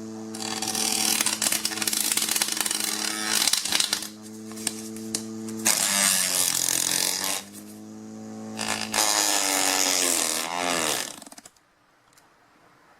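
Portable mini fan's electric motor running with a steady hum, overlaid by loud rushing air noise in three spells. The motor's pitch shifts twice, and it cuts off about eleven and a half seconds in.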